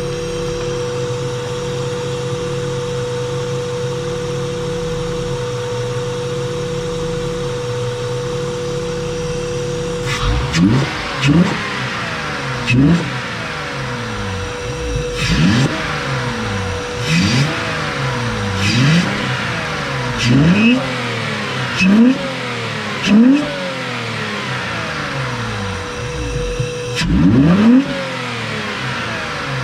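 1995 Acura Legend's 3.2-litre V6, fitted with a Weapon R cone-filter intake, idling steadily for about ten seconds. It is then revved in about ten quick throttle blips, each rising and falling in pitch, with a longer, higher rev near the end. The intake gives it a deeper, more aggressive note with a little whistle on the revs.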